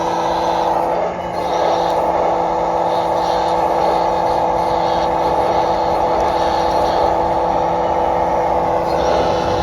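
RC excavator model's electronic sound module playing a simulated diesel engine running steadily through a small speaker, with a brief dip about a second in.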